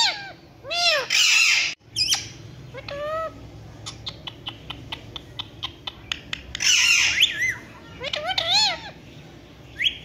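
Indian ringneck parakeets calling: short squawks and chirps that rise and fall in pitch, coming in clusters, with a harsher screech near the start and the loudest calls around seven seconds in. Between them, a run of fast ticking for about two seconds.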